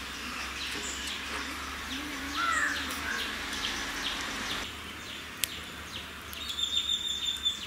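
Birds chirping: a run of short, falling chirps, about two to three a second, for the first four seconds or so, then a high steady note near the end.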